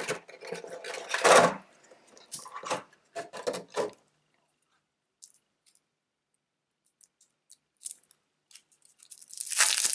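Board game components being handled in their box: a plastic insert tray and shrink-wrapped card deck knocked and scraped as they are lifted out, loudest about a second in. Then a few faint clicks, and plastic wrap crinkling starts near the end.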